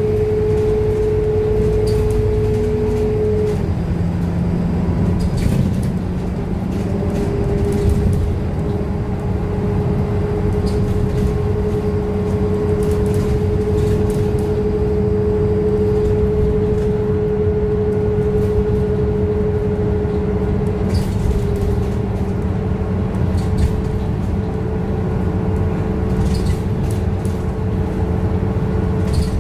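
Scania K230UB city bus running at expressway speed, heard from inside near the front: a steady whine over engine drone and road noise, with scattered light clicks and rattles. The whine drops out a few seconds in, comes back slightly lower, then settles at its earlier pitch.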